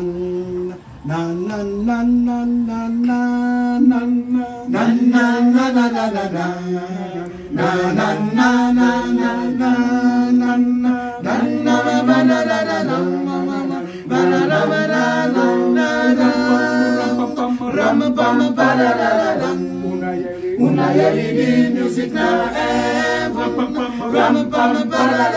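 A small mixed group of men's and women's voices singing a cappella, with a steady held low note beneath a moving melody and short breaks between phrases.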